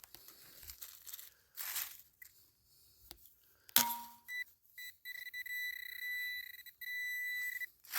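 Handheld metal-detecting pinpointer sounding a steady high beep, broken off a few times, from about halfway through: it is signalling metal close to its tip. Before it come faint scrapes in the soil and a short knock.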